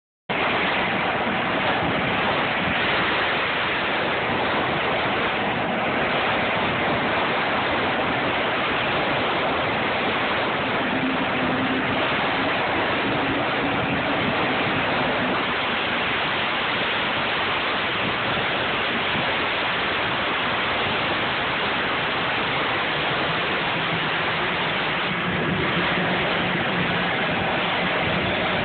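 Twin-turbine Sikorsky S-92 helicopter running on the helideck with its rotors turning: a steady, loud rush of turbine and rotor noise with no breaks.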